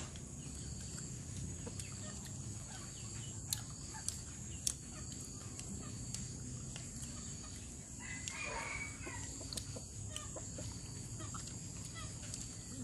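Chickens clucking, with one louder call about eight seconds in.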